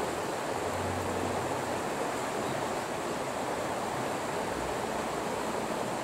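Steady rush of a mountain stream running over rocks and shallow riffles.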